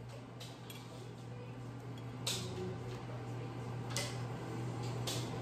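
Corn husk crackling faintly as it is peeled off a steamed tamale, with a few light clicks and knocks against a plate.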